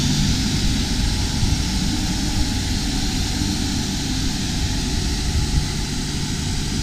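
Tornado ASZ 3000 INOX automatic carpet scrubbing-and-washing machine running: a steady drone of its motors and rotating brushes, with a hiss of water over the wet carpet.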